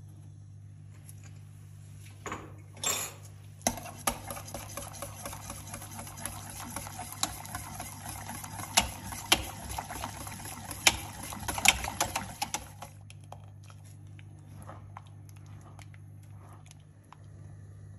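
Wire whisk stirring thick tomato soup in a pot, ticking and clinking against the pot's sides in a dense run from about four seconds in. The clinking stops about 13 seconds in, leaving softer stirring with a silicone spatula, and a steady low hum runs underneath throughout.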